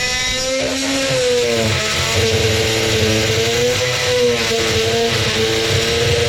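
Small power tool's motor running while cutting a corroded nut, its pitch sagging and recovering as the cut loads it.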